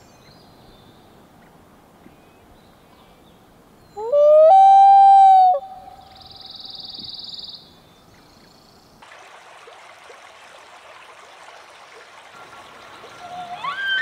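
Common loon wailing: one long call a few seconds in that rises, then holds a steady note for about a second. Near the end a bull elk's bugle begins, gliding up into a high whistle.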